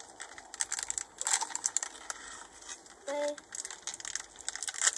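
Plastic candy wrapper crinkling and crackling as it is handled, in quick irregular bursts.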